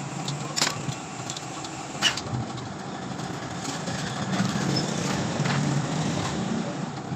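Steady hum of a motor vehicle engine running in the background, swelling a little in the second half, with a few sharp metallic clicks; the loudest click comes about two seconds in.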